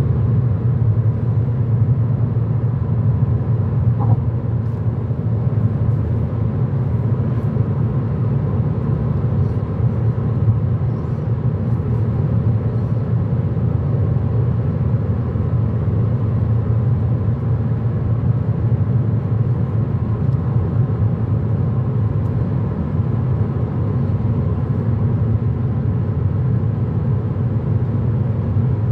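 Steady low rumble of a car in motion, heard from inside the cabin: tyre, wind and engine noise at motorway speed.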